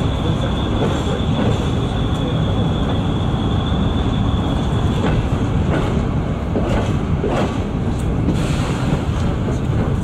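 Moving train heard from on board: a steady rumble of wheels on rail and running gear, with a thin high whine that stops about halfway. In the second half, a few sharp clicks come as the wheels cross rail joints and switches.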